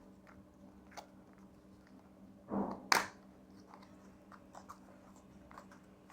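Packaging and accessories being handled during an unboxing: scattered small clicks and rustles, a short crinkle about two and a half seconds in and a sharp snap just after, over a faint steady hum.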